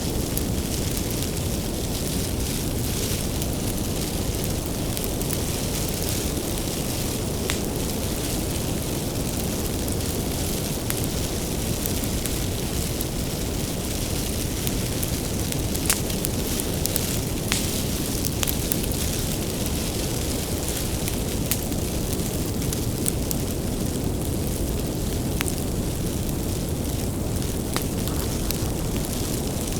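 Wood bonfire burning with a steady low rumble of flames and scattered sharp crackles and pops from the firewood.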